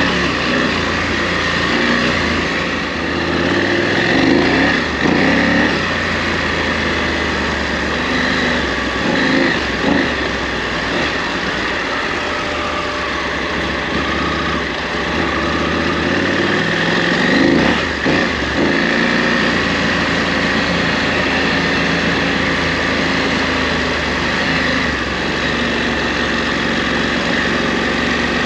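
KTM 890 Adventure R's parallel-twin engine running on an off-road ride, its revs rising and falling with the throttle several times.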